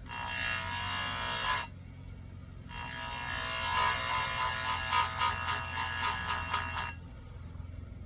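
Electric chain grinder's abrasive wheel grinding the cutters of a chainsaw chain: one short grind of about a second and a half, then a longer one of about four seconds with a pulsing rasp. A low steady hum runs underneath.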